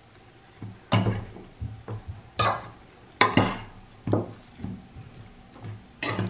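Metal fork clinking and scraping against a stainless steel pot while raw chicken drumsticks are turned over in their seasoning: about half a dozen irregular strokes.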